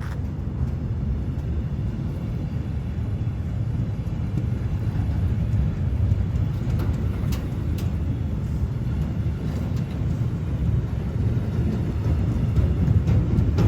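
Train running with a steady low rumble and a few faint clicks.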